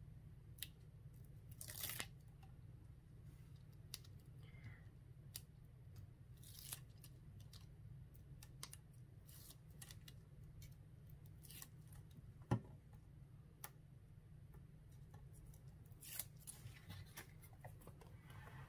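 Faint rustling and peeling of cardstock and double-sided tape backing as a shaker card is assembled, with scattered light clicks and one sharper tap about twelve seconds in.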